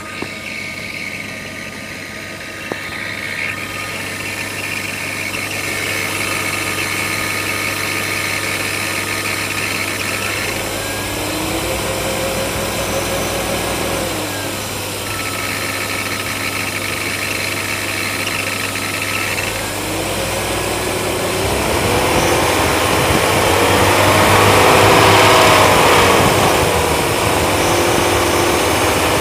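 BMW E34's M50 straight-six engine idling with a high-pitched squeak, revved up and back down a few times.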